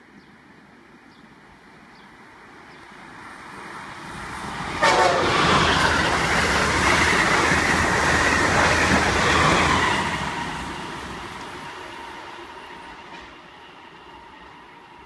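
Amtrak Acela Express high-speed electric trainset passing close by at speed. The rush of wheels and air builds as it approaches and jumps suddenly when the train draws level about five seconds in. It stays loud for about five seconds as the cars go by, then fades as the train pulls away.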